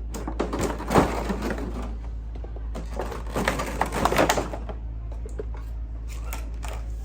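Toy box packaging being opened and handled: crackling and clicking from cardboard and plastic in two spells, in the first second and a half and again about three to four and a half seconds in.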